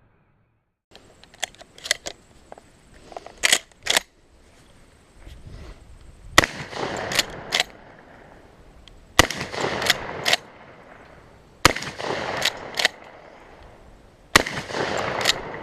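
Adler A110 lever-action 12-gauge shotgun fired four times, roughly every two and a half to three seconds, each shot echoing briefly. After each shot come two metallic clacks as the lever is worked to chamber the next shell. A few lighter clicks of the action come before the first shot.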